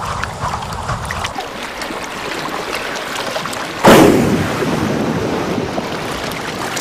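Sea water washing and sloshing, then about four seconds in a whale's blow at the surface: a sudden loud whoosh of breath and spray that dies away over the next couple of seconds.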